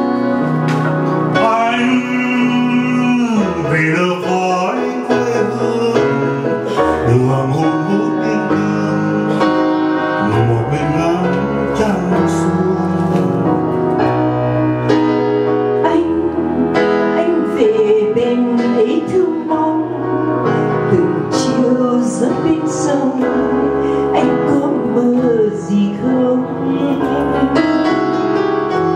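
Music for a Vietnamese song duet, played loud and steady, with a keyboard accompaniment and a wavering melody line.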